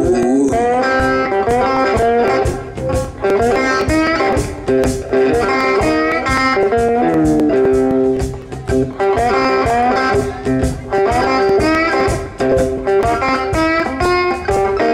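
Electric blues guitar playing lead lines with bent notes over a steady beat.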